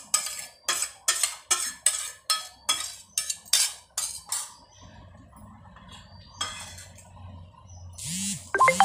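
A steel spoon knocking and scraping mango pulp out of one stainless steel bowl into another, about three sharp strikes a second for the first four and a half seconds. Then a low steady hum, and near the end a louder metallic clatter.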